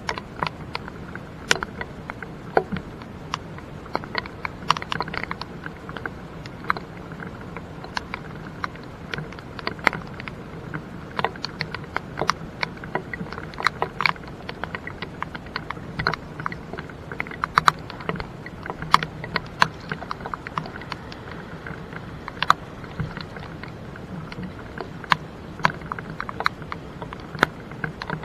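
Raindrops ticking sharply and irregularly close to the microphone, several a second, over a steady low rumble of noise.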